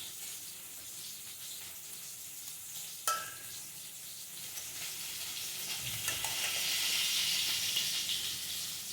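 Diced potatoes sizzling as they fry in a pan, with one sharp clink about three seconds in. The sizzle grows louder in the second half.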